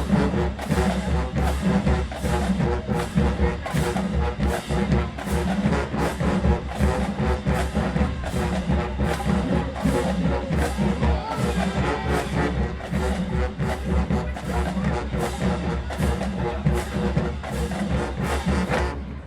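Marching band playing: brass section of trombones and trumpets over a steady drumline beat. The music cuts off suddenly at the end.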